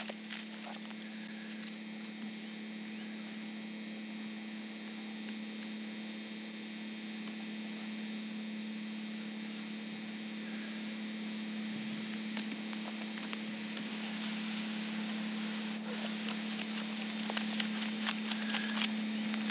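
A steady low hum under an even hiss, with a few faint clicks near the end.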